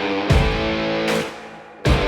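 Background rock music with electric guitar and drum hits, cutting out briefly near the end before a hard hit comes back in.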